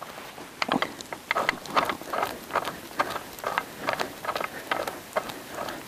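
Steel bow shackle clinking against a Hi-Lift jack as its pin is screwed in by hand: an irregular run of short metal clicks, about three or four a second.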